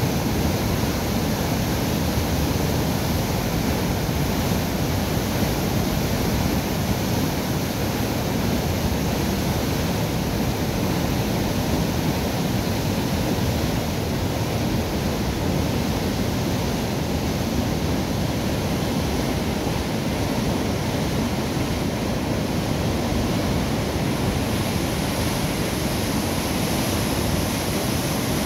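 Water rushing steadily out through the sluices beneath a river lock's closed steel mitre gates as the lock chamber is emptied: a continuous, even roar of churning water with no pauses.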